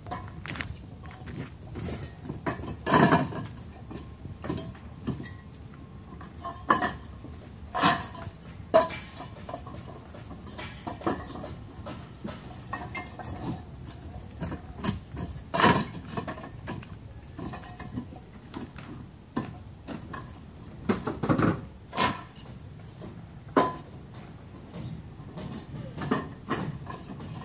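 Hollow clay bricks clacking and knocking against each other as they are unloaded by hand and stacked, in irregular sharp knocks with several louder ones scattered through.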